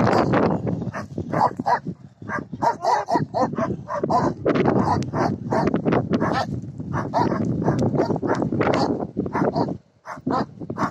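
Small puppies yapping and yipping in quick, repeated short calls.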